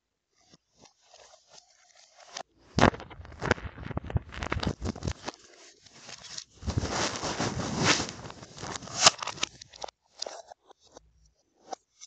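Handling noise: irregular knocks, clicks and scraping rustles, densest in the middle and thinning out near the end.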